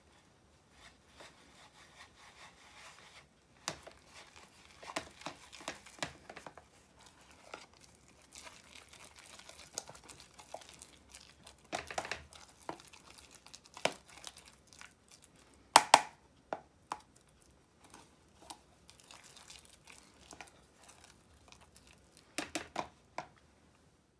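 Small spatula stirring wholemeal flour and water into a thick sourdough-starter paste in a plastic tub, with irregular soft scrapes and clicks against the tub's sides and bottom.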